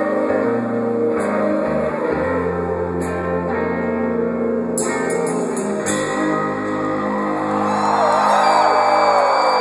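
Live rock band playing the last held electric guitar and bass notes of a song, with a few cymbal crashes, captured through a phone's microphone in a large hall. From about six seconds in, the crowd whistles and whoops over the ringing chords as the song ends.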